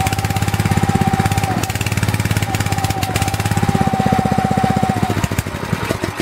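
Small single-cylinder four-stroke stationary petrol engine running on a naphtha-and-alcohol cleaning solvent with the choke fully on, firing evenly with a steady whine over it. About five seconds in the whine stops and the engine slows and dies, having burned through its small charge of solvent.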